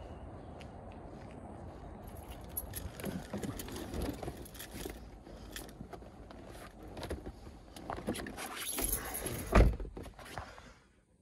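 Someone getting into a Honda Civic sedan: rustling, clicks and keys jangling as they climb in, then a loud thump about nine and a half seconds in as the car door shuts, after which the street noise drops away.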